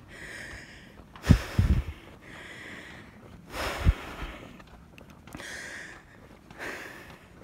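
A person breathing hard, in and out in a steady rhythm, while climbing a steep sand dune on foot. A few low thumps come through near the second second and again about four seconds in.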